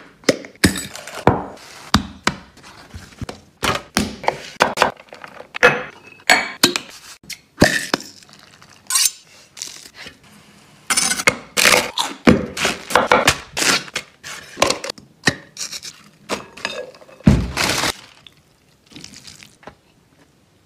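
Close-up kitchen food-prep sounds in quick succession: sharp knocks, thunks and glass clinks of bowls, bottles and utensils as ingredients are handled. A heavier thud comes near the end, after which the sounds grow fainter.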